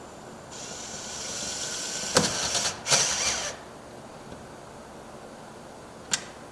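Cordless drill/driver running for about three seconds, in two short runs, driving screws to fasten the storm door's latch strike plate, with knocks as the drill stops. A sharp click comes near the end.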